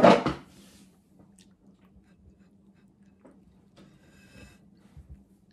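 A brief loud burst at the very start, then faint scattered clicks and rustles of a person mouthing and biting at a banana on a ceramic plate without using her hands.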